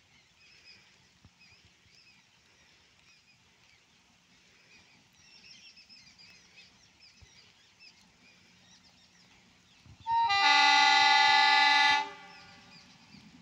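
Horn of a ZDM3 narrow-gauge diesel locomotive sounding one long, steady blast of about two seconds, starting about ten seconds in. Before it there is only faint bird chirping.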